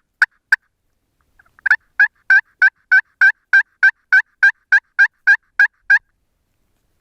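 A hunter's turkey call sounding a series of turkey notes to draw a response from birds. Two short notes come near the start, then after a pause a run of about fourteen sharp, evenly spaced notes at about three a second.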